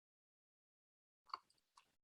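Near silence, broken by a faint short click a little over a second in and a fainter one shortly after.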